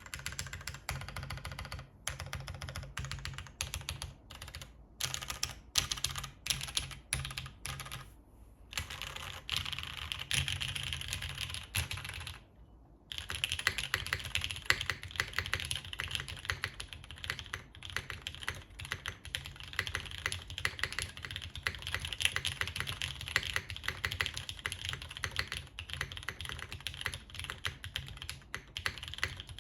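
Mechanical keyboard typing: Gateron Ink linear switches in an aluminium-plate JTD Ovinnik TKL, with GMK doubleshot ABS keycaps. Short bursts of keystrokes with brief gaps for the first several seconds, a short pause about 13 seconds in, then steady fast typing.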